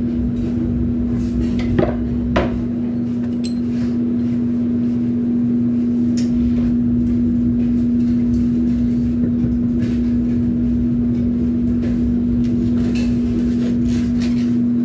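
Steady hum of running kitchen equipment, one low tone held throughout, with scattered clinks and knocks of utensils and containers, two sharper knocks about two seconds in.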